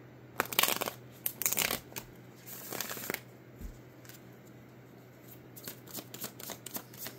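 A deck of tarot cards being shuffled by hand: three short bursts of shuffling in the first three seconds, then a quick run of soft card flicks near the end.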